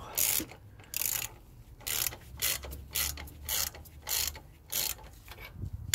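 Ratchet spanner clicking in short repeated strokes, about two a second, as it winds in the screw of a valve spring compressor on a Ford CVH cylinder head, compressing the valve spring.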